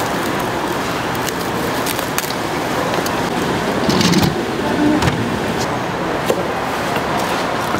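Busy market food-stall background: a steady noisy bed with scattered clicks and clatter, and a louder burst of clatter about four seconds in.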